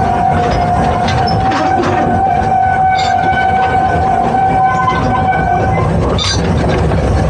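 A steam locomotive's whistle blows one long, steady blast that stops about six seconds in, over the steady low rumble of the train running on the rails.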